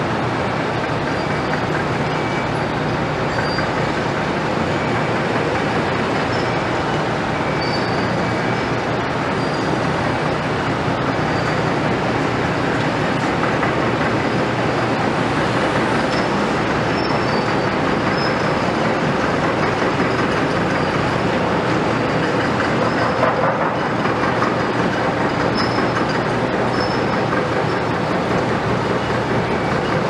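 Heavy construction machinery and trucks working: a steady, loud din of diesel engines and rumbling equipment, with faint short high squeals coming and going throughout.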